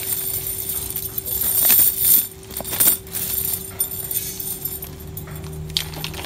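A small metal chain jingling and clinking as it is handled and dropped onto the ground, with the loudest rattles in the first three seconds.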